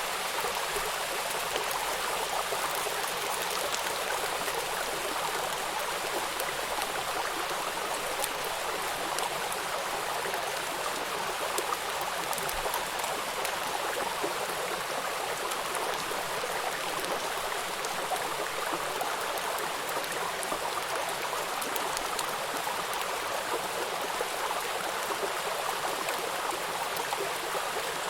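Stream water running steadily, an even rushing with fine splashing ticks.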